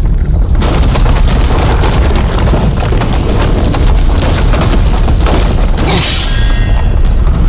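Loud, deep rumbling booms from a dramatic soundtrack's sound effects, with a swelling hiss near the end that cuts off sharply.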